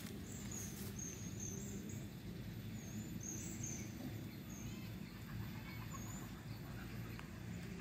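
Small bird chirping, about a dozen short high calls at irregular intervals, over a steady low background hum.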